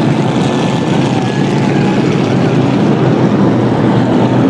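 Race car engines running loud and steady, with no break or pause.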